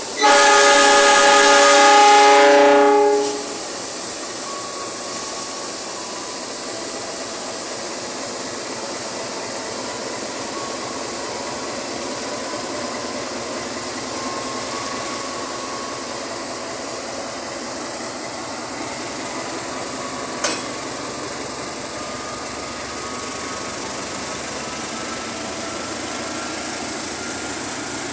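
A KAI CC206 diesel-electric locomotive sounds a loud horn blast lasting about three seconds, then runs past, its engine and wheels on the rails making a steady noise as it hauls loaded container flat wagons. A single sharp click comes about twenty seconds in.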